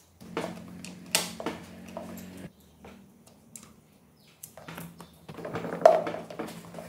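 Clicks, knocks and rustling of hands fitting cables and plastic parts onto a scooter engine, with a low steady hum in two stretches. The loudest knock comes about six seconds in.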